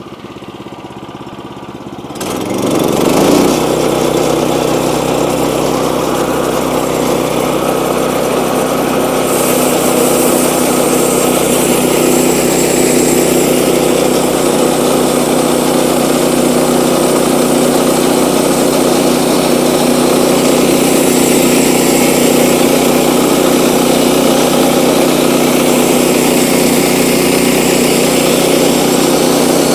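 Sawmill's gasoline engine idling, then revving up about two seconds in and running steadily at cutting speed.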